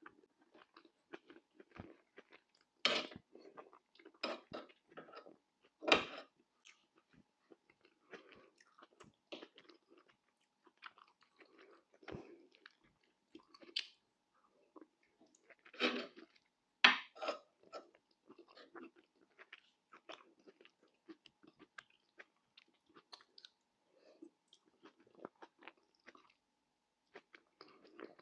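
Close-miked mouth sounds of a person eating: irregular chewing and crunching, with a handful of louder crunchy bites standing out.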